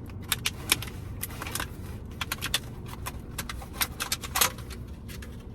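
A takeout food container being opened and handled: a run of irregular crinkles and clicks, the loudest about four and a half seconds in.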